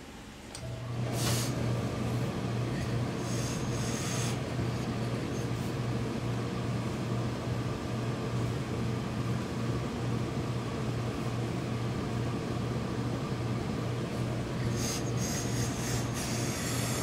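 Steam pressing equipment starting up about a second in: a steady low hum with a rushing noise, plus short hisses of steam near the start and again near the end as the hose-fed steam iron is used on the suit fabric.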